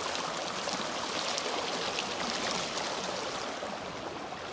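Shallow river water flowing over and between rounded stones: a steady rushing wash that eases slightly toward the end.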